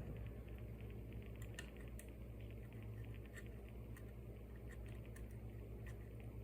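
Faint, irregular small clicks and scratches of a tool picking packed pocket lint out of an iPhone 7 Plus charging port, over a steady low hum.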